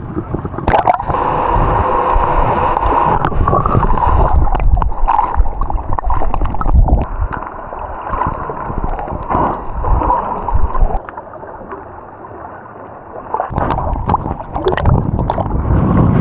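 Water sloshing, gurgling and splashing over the microphone of a camera in the water while snorkelling, with short splashy knocks throughout. It quietens for a couple of seconds towards the end.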